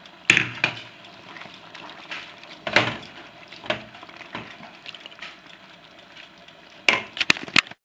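Wooden spoon knocking and scraping against a stainless steel pan while stirring raw diced chicken into risotto. There are a handful of separate sharp knocks, then a quick cluster of them near the end.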